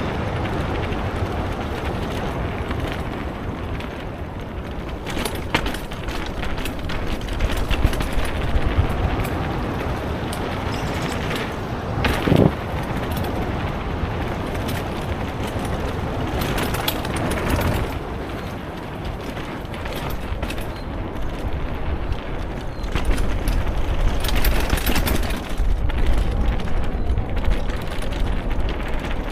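A car driving along a rough forest track: steady engine and road rumble, with scattered knocks and rattles from bumps. The sound gets louder for the last several seconds.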